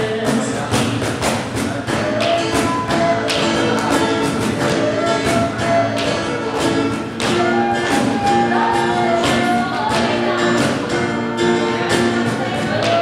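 Group rehearsal of a Turkish song: voices singing a melody over rhythmic instrumental accompaniment with a steady beat.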